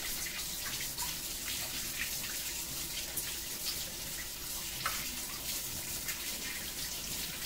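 Kitchen faucet running steadily into a stainless steel sink while hands are rinsed under the stream.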